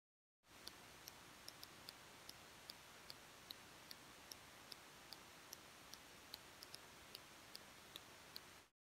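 Near silence: a faint hiss with light, high ticks about two or three a second, cutting off suddenly near the end.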